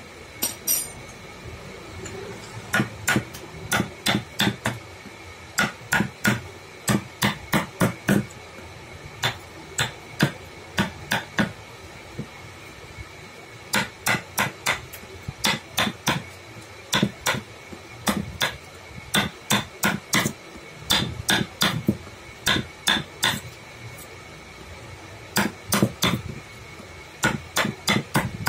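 Wooden mallet striking a carving chisel into a wooden block, in runs of sharp taps a few a second, with pauses of a second or two between runs as the chisel cuts and chips away wood.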